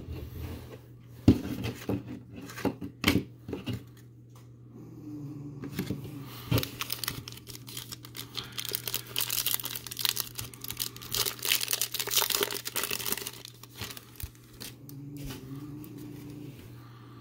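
Foil trading-card pack wrapper crinkling as it is torn open by hand, thickest in the middle and thinning out near the end. It is preceded by a few sharp taps and clicks of cards being handled. A faint steady low hum sits underneath.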